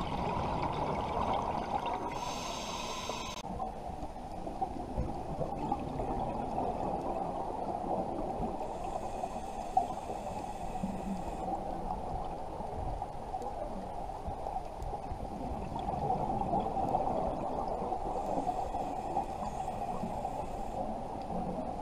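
Scuba regulator breathing heard underwater: a steady muffled water noise, with three short hissing breaths several seconds apart and bubbling from the divers' exhaled air.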